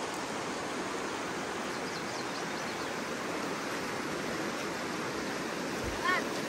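Steady rush of the Virgin River flowing over rocks, an even wash of water noise. Near the end a short low thump and a brief high, wavering call cut in.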